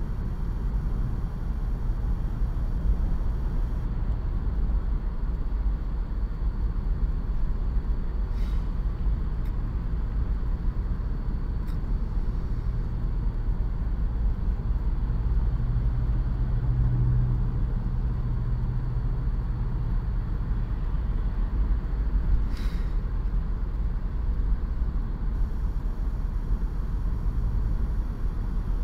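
Steady low rumble of a car driving, heard from inside the cabin: engine and road noise, with a low drone swelling briefly around the middle and a few faint clicks.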